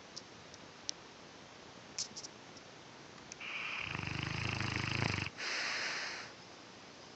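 A mastiff snoring: one long, low, buzzing snore of about two seconds, a brief pause, then a shorter breathy hiss of air.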